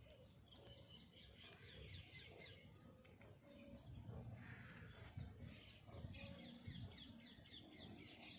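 Faint birdsong: small birds chirping in quick repeated trills about a second in and again from about six seconds, over soft low muffled noise.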